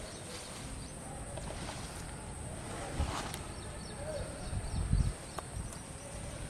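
Outdoor field ambience with a few soft low thumps of handling and footsteps on a grassy bund, one about three seconds in and a cluster around five seconds.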